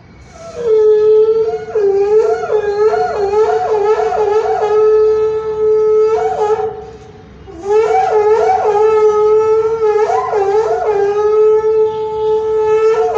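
Handmade paper conch shell (shankha) blown in two long blasts, each a steady low tone with wavering upper notes that flick up and down again and again; a short break comes about seven seconds in.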